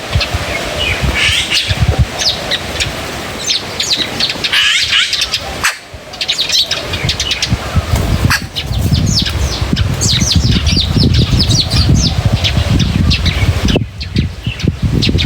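Many small birds chirping and tweeting in quick, overlapping calls, with a low rumble underneath that gets louder about halfway through.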